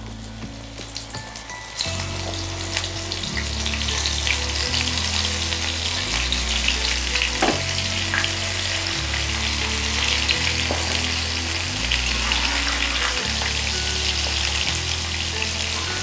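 Soya chunks coated for soya 65 deep-frying in hot oil in a cast-iron kadai: a steady, dense sizzle that grows louder about two seconds in. Soft background music with a slow bass line plays underneath.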